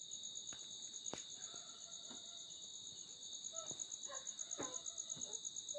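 Insects trilling steadily: a fast, evenly pulsing high chirp over a second steady high buzz. A few faint clicks and short lower calls come through the trill.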